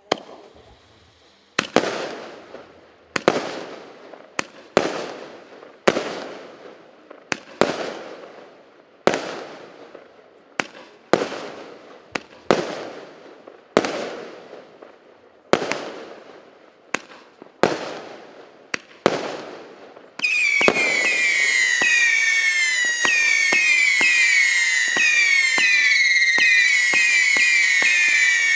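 A 169-shot, 0.8-inch consumer firework cake firing. Single shots go off about every one and a half seconds, each a sharp bang with a fading tail. About twenty seconds in, it switches to a rapid, steady volley of whistling shots: many falling whistles over quick pops.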